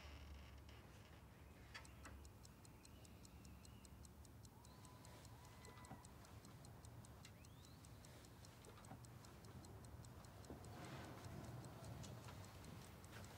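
Quiet room tone with a clock ticking evenly, starting about two seconds in. A soft rustle comes near the end.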